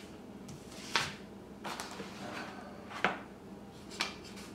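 Laser-cut wooden kit sheets being handled and set down on a stone countertop: three sharp wooden clacks, about one, three and four seconds in, with light sliding and rustling between.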